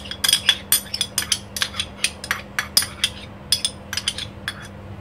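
A quick, irregular run of sharp clinks and taps of crockery, a small dish knocking and scraping against a ceramic bowl as thick sauce is emptied out of it. The clinks stop about four and a half seconds in.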